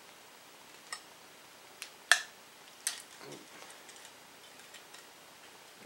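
Four sharp metal clicks as the spring-loaded steel rod of a cast iron stovepipe damper is slid back through the damper plate. The loudest click comes about two seconds in.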